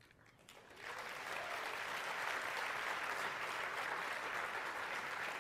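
Audience applauding: scattered first claps, then the applause swells quickly about a second in and holds steady.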